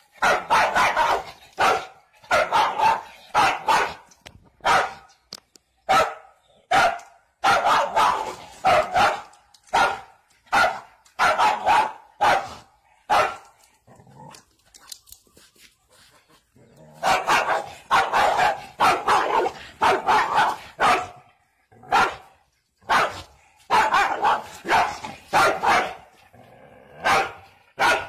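Dog barking repeatedly in quick runs of sharp barks, with a lull of a few seconds about halfway through.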